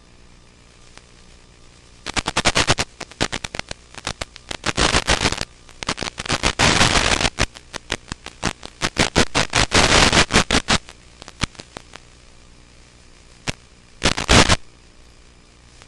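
Crackling static from an analog FPV video receiver, in dense clusters of sharp pops and hiss over a low steady hiss, with a last short burst near the end. The crackle is the sign of the radio link weakening and breaking up as the aircraft flies far out.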